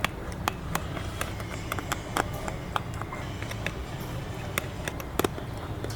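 Irregular sharp clicks and taps of small hand tools working on an iPhone 12 Pro Max during repair, over a steady low hum. The loudest is a quick double click about five seconds in.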